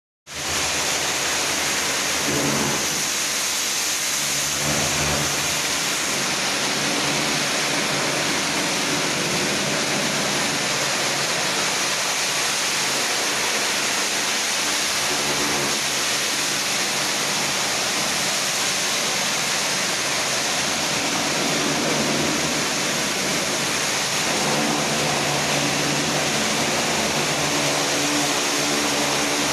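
Kärcher pressure washer blasting a jet of water against soot-covered walls: a steady, loud hiss of spray over a low hum.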